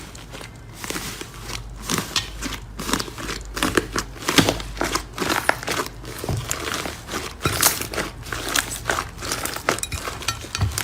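Slime being squeezed and pressed by hand, giving dense, irregular crackles and pops.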